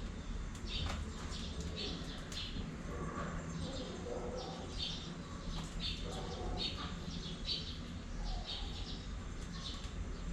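Cockatiels chirping: a steady run of short, high chirps, about two a second, over a low steady hum.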